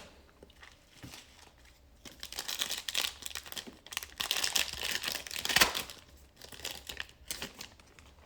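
Plastic foil wrapper of a basketball trading-card pack crinkling and tearing as it is ripped open by hand. The crinkling starts about two seconds in, has a sharp crackle in the middle and one shorter crinkle near the end.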